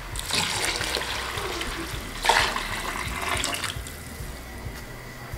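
Boiling water poured from a pot onto paste-coated rice in a stainless-steel cooking pot: a steady splashing pour with a louder gush a little over two seconds in. It tails off after about three and a half seconds.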